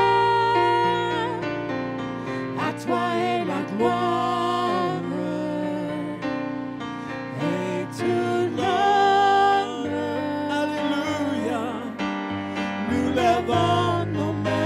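Worship song sung by a woman and a man together into microphones over instrumental backing, with long held notes.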